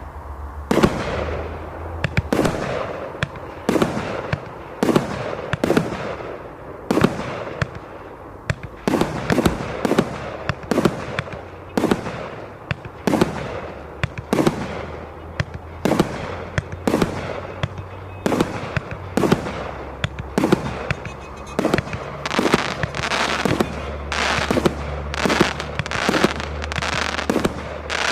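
Consumer firework battery (cake) firing shot after shot, sharp bangs about one or two a second with crackle between them, the shots coming faster near the end.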